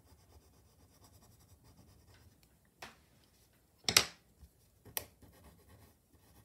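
Faint scratching of a coloured pencil on paper. Then come a few sharp clicks as pencils are set down and picked up: one about three seconds in, a louder double click about four seconds in, and another a second later.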